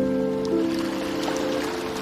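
Soft relaxation music of long held notes in chords, with a note change about half a second in, over a faint even hiss of water.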